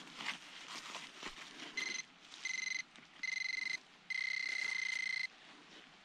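Handheld metal-detecting pinpointer buzzing in four bursts of a high, pulsing tone, each burst longer than the last, the final one over a second long, as it closes in on a metal target in the dug soil that turns out to be a spent cartridge case. Soft scraping in the soil comes before the first buzz.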